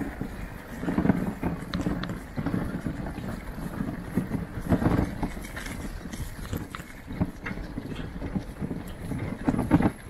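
Bicycle rattling and knocking over a rough, bumpy track, with a steady low rumble underneath and several sharper clatters from jolts.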